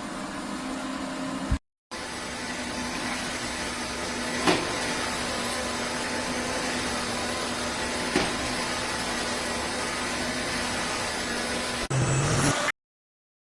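Roborock F25 LT wet-and-dry vacuum mop running with a steady motor hum and two brief clicks, then cutting off suddenly near the end.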